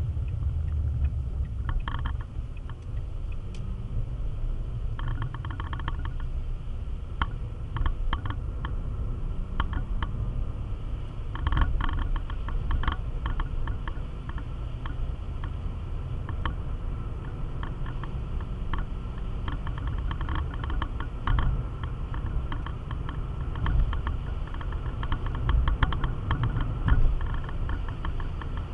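Car in motion on a wet road, heard from inside the cabin: a steady low rumble of engine and tyres. Clusters of small clicks and ticks come and go throughout.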